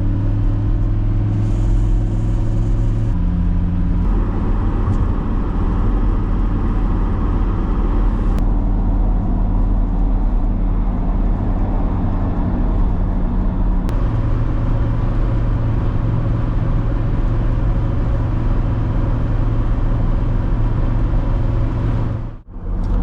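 Car engine and road noise heard from inside the cabin while driving, a steady low drone whose pitch shifts a couple of times, as with gear changes. It drops out briefly near the end.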